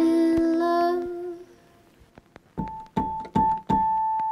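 Background music on keyboard: held chords that fade out about a second in, a short pause, then one high note struck four times in quick succession, the last one held.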